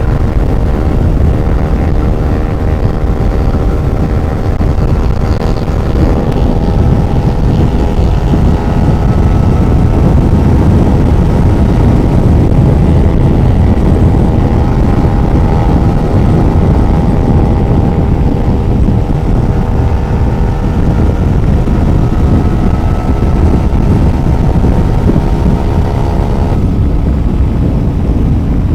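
Motorcycle engine running steadily at road speed, with heavy wind rush on the microphone. The engine's pitch shifts slightly a few times.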